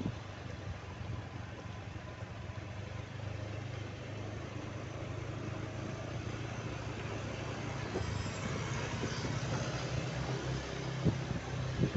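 A motor vehicle's engine running steadily, a low hum under road noise, with a brief rise in hiss about eight seconds in and a few knocks near the end.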